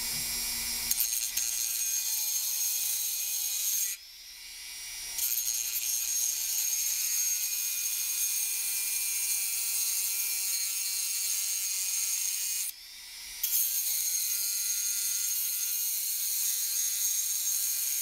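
Dremel rotary tool grinding through a safe combination dial's spindle to cut it to length, a steady high-pitched whine. The cut eases off briefly twice, about four seconds in and near thirteen seconds, then carries on.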